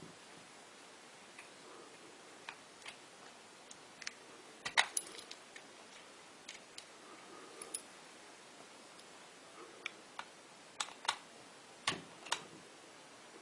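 Scattered small clicks and light metallic clinks from small hard parts being handled, with a loud cluster about five seconds in and a few more near the end.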